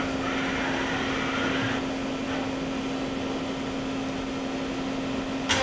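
Daewoo Puma 200LMSA CNC turning centre under power: the subspindle's B-axis slide moves with a wavering whine that stops about two seconds in, over the machine's steady hum. A sharp clunk comes right at the end.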